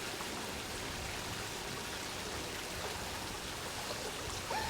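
Steady wash of splashing, churning pool water, an even rushing noise with no separate splashes standing out.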